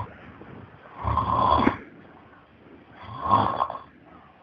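A man snoring loudly, two rasping snores about two seconds apart, each lasting under a second.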